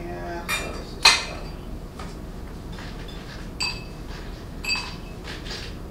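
Ice and glass being handled: a sharp knock about a second in, then two short ringing glass clinks near the end.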